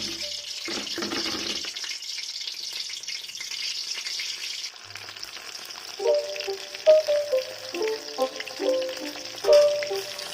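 Food sizzling steadily in hot oil in a pan, with some stirring. Background music with a melody comes in about six seconds in.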